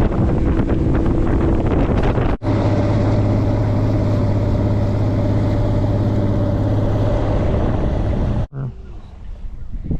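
A vehicle on the move, its motor running with a steady low hum under loud rushing noise; the sound cuts off abruptly twice as one short clip gives way to another.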